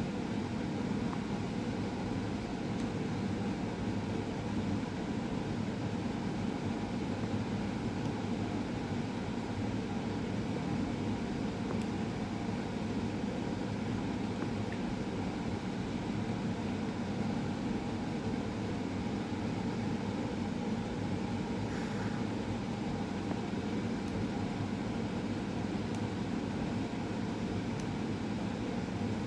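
Steady low background hum with no changes, like a running machine or room ventilation, with one brief faint sound about two-thirds of the way through.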